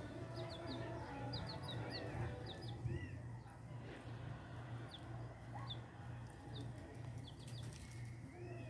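Birds chirping: short high chirps in quick runs of two to four, with a few softer arched calls, over a steady low hum.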